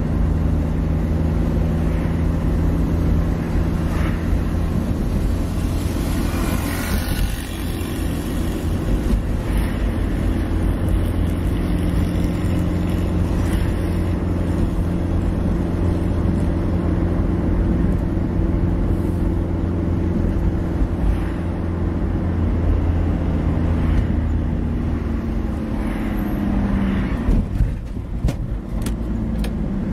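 Car engine running steadily with road noise while driving. The engine note falls and fades near the end, and a few sharp clicks follow.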